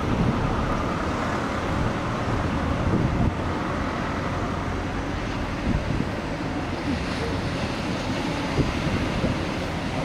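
Ocean surf breaking and washing in a steady rush, with wind buffeting the microphone in low, uneven rumbles.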